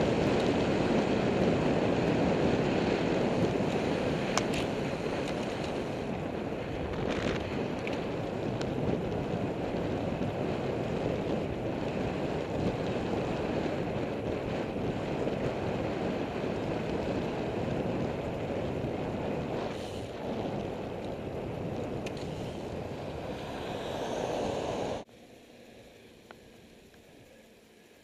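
Wind rushing over a bicycle-mounted camera's microphone, along with road noise from a road bike riding at speed: a steady rushing noise with a few sharp clicks. Near the end it cuts off suddenly to a faint hiss.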